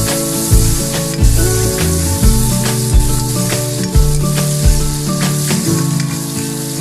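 Long beans and tofu sizzling in a hot pan as they are stir-fried and stirred, over background music with a steady beat.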